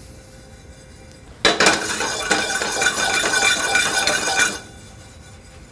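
Sesame seeds rattling and sliding across a dry stainless steel pan as it is swirled over the flame for dry-toasting, with the metal pan ringing faintly. It starts about a second and a half in and lasts about three seconds.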